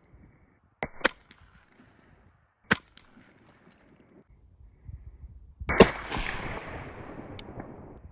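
Rifle shots: a quick pair about a second in, a single shot a couple of seconds later, then a much louder shot past the middle whose report rolls away over about two seconds.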